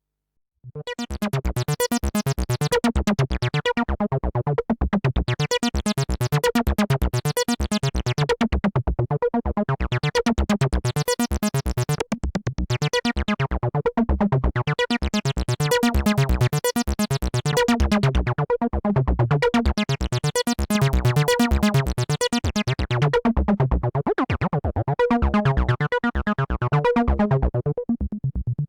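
Behringer TD-3-MO, a TB-303-style analog bass synthesizer, playing a rapid repeating sequenced note pattern that starts about a second in. Its filter opens and closes in slow sweeps every few seconds, so the tone keeps turning bright and buzzy, then dull.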